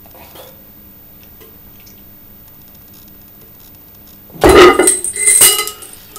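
Faint room noise, then, a little over four seconds in, a run of loud metallic clanks with ringing as a cast-iron weight plate hung on a chain is set down against other iron plates.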